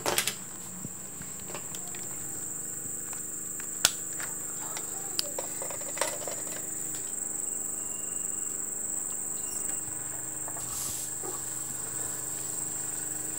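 A steady, high-pitched insect chorus drones without a break. A few light taps are heard now and then.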